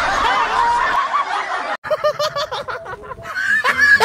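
People laughing and snickering. The sound cuts off abruptly a little under two seconds in, then picks up again with a quick run of short laughing notes.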